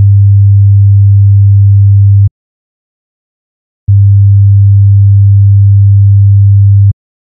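Pure sine-wave test tone at about 100 Hz, a low steady hum for frequency-identification ear training. It cuts off about two seconds in, then after a short silence plays again for about three seconds.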